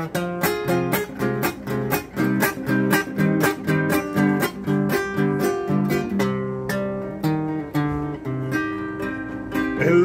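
Classical guitar played solo and fingerpicked: a steady run of plucked notes, about four a second, over a moving bass line.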